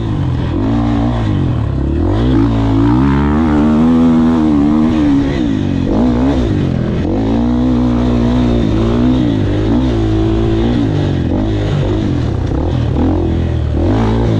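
KTM dirt bike engine being ridden hard, its revs rising and falling over and over as the rider opens and closes the throttle.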